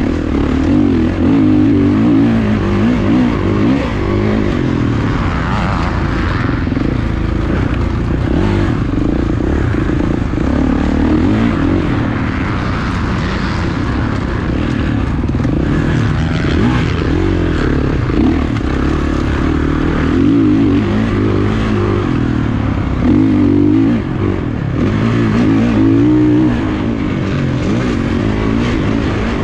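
Motocross dirt bike engine ridden hard, revving up and down continuously.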